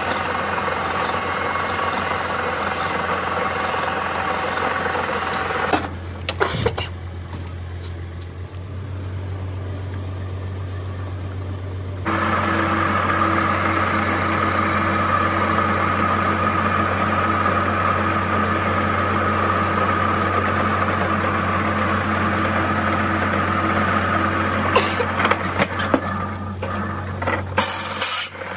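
Metal lathe running with a steady low hum while the spinning workpiece is first filed, then turned with a cutting tool. The file gives a rasping noise, and the cut adds a steady whine. A few clicks and rattles come about six seconds in and again near the end.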